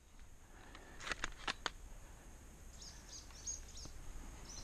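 Small birds chirping in short, high, quick calls through the second half, after a quick run of four sharp clicks about a second in.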